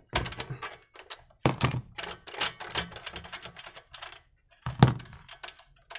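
Metal clinks and rattles of a tubular spark plug wrench worked on the spark plug of a small petrol generator as the plug is unscrewed, with sharper knocks about one and a half seconds and about five seconds in.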